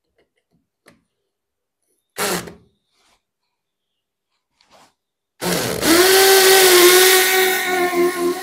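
DeWalt 18V XR cordless hammer drill running in hammer mode, drilling a 6 mm masonry bit into concrete blockwork. It starts about five seconds in and runs steadily to the end, after a short burst about two seconds in.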